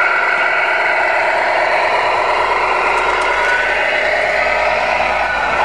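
Tamiya Scania R470 radio-controlled model truck's sound unit playing a steady simulated diesel engine through its small speaker.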